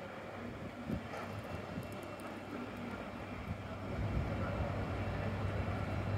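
City route bus's diesel engine idling at the stop: a steady low hum with a faint whine above it, growing somewhat louder about four seconds in.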